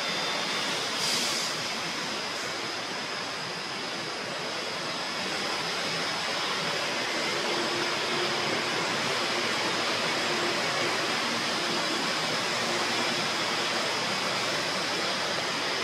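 Steady, even background hiss with a faint high-pitched steady tone running through it; no distinct event stands out.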